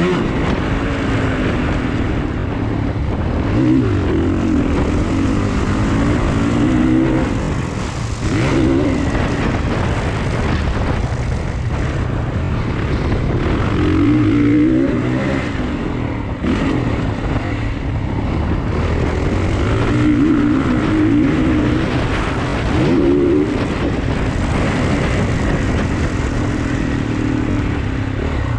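Motocross dirt bike engine heard from an on-board camera, revving up and falling back again and again as the rider accelerates and eases off around the track.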